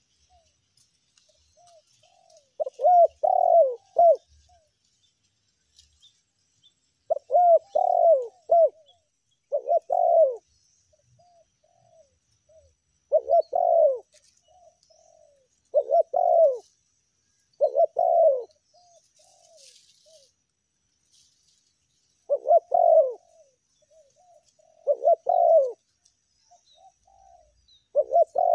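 Spotted dove (tekukur) cooing: about nine loud, throaty coo phrases repeated every two to five seconds, with softer short coos in between.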